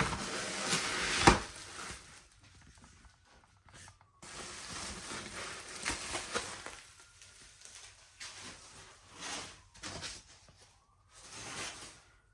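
Packaging being handled while the robotic lawn mower is taken out of its box: irregular bursts of plastic and cardboard rustling, with a sharp knock about a second in.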